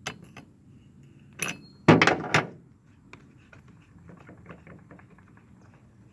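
Small hard objects being handled: a couple of clicks, a knock, then a louder clatter about two seconds in, followed by a run of faint light clicks.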